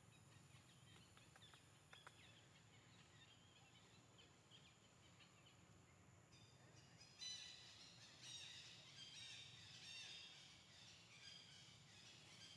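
Faint high-pitched animal chirping in quick, repeated short notes, starting about seven seconds in, over low background hiss.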